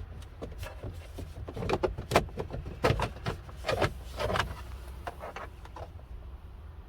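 Plastic steering-column bezel and its rubber gasket being worked into place by hand: an irregular run of light clicks, knocks and rubbing, busiest through the middle, over a steady low hum.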